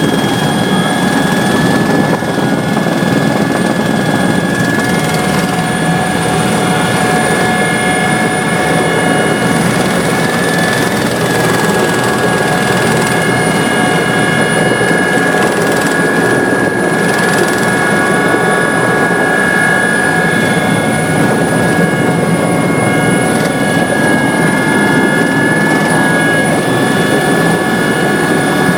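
Helicopter running steadily and loudly, a dense engine-and-rotor noise with a steady high whine over it.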